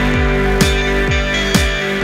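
Background music with a steady drum beat, about two beats a second, over sustained instrument tones.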